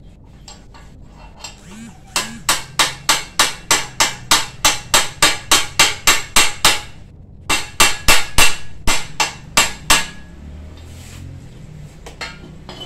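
Hammer blows on a bolt used as a drift to knock a bicycle crankset out of the frame: a steady run of sharp strikes, about three a second for some five seconds, a brief pause, then another run of about eight blows before they stop.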